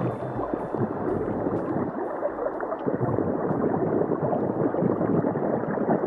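Steady gurgling, churning water.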